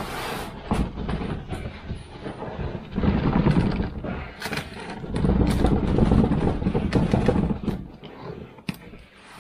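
A large cardboard box being tugged and shifted by hand: cardboard scraping and rubbing, with a few sharp knocks. The handling is loudest from about three to four seconds in and again from about five to seven and a half seconds.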